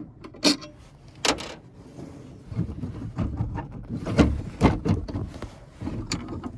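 Metal clicks, knocks and rattles of hand tools and parts as a fan motor's mounting clamp bolt is taken out and the clamp spread apart. Two sharp clicks come in the first second and a half, then a busy run of knocks and rattles from about two and a half seconds in.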